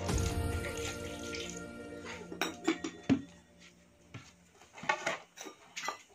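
Background music fading out over the first two seconds while water is poured from a plastic jug over a hand onto a plate, then a series of light clinks and knocks of steel bowls and plates being handled.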